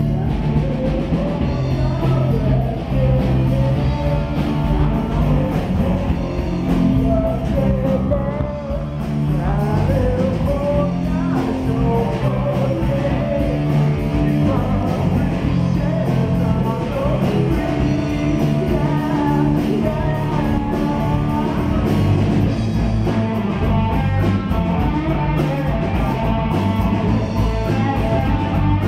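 Live rock band playing through PA speakers: electric guitar and bass with drums, and a voice singing over them.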